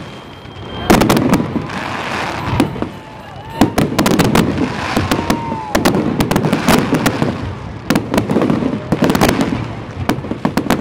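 Aerial fireworks display: shells bursting with sharp bangs that come in clusters every couple of seconds, with crackling between them.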